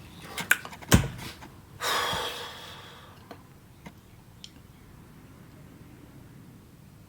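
A couple of light knocks, then a person's long breath out lasting about a second, like a sigh.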